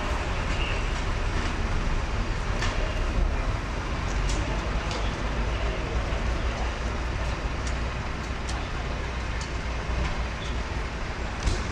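Steady street rumble of running vehicle engines and traffic, strongest in the low end, with a few faint clicks.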